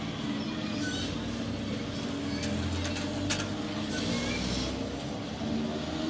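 EMU local train rolling past along the platform: a steady low hum from the running gear and wheels on the rails, with a couple of sharp clacks and a few brief high squeaks.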